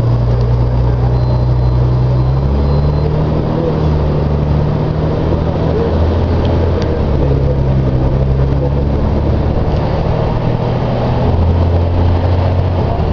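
Volvo B58 bus diesel engine running loud under way, its low drone stepping up and down in pitch several times as engine speed changes.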